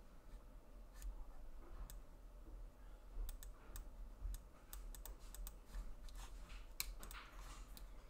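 Faint, irregular clicking on a computer mouse and keyboard while video focus settings are changed: a few clicks at first, then a quicker run of them from about three seconds in, over a low steady hum.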